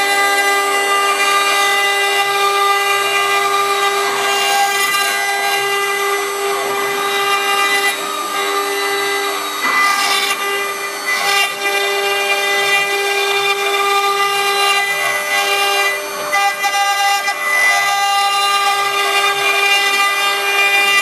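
Stone CNC router spindle whining steadily at a high pitch as its tool cuts wet stone, with a gritty grinding noise under the whine and a few brief dips in level.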